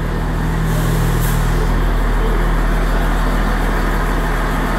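Underfloor diesel engines of a CrossCountry Class 170 Turbostar diesel multiple unit running at the platform, a steady low hum that builds slightly, with a short hiss of air about a second in.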